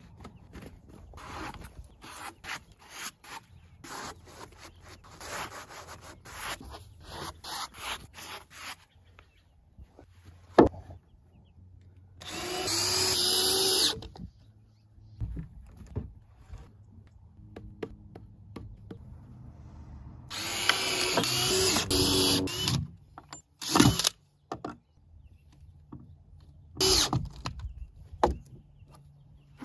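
Cordless drill driving screws into wooden floor boards, in two runs of about two seconds each and a few shorter bursts. Before the drilling comes a string of wooden knocks and clatter, with one sharp loud knock about ten seconds in.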